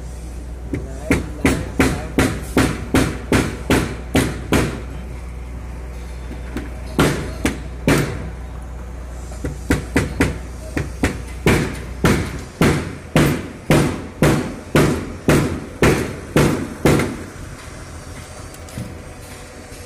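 Repeated hammer blows in runs of quick strikes, about three a second, with short pauses between the runs.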